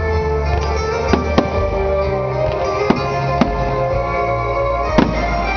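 Music played along with a fireworks show, with sustained tones throughout. Five sharp bangs of firework shells bursting cut through it, the loudest about five seconds in.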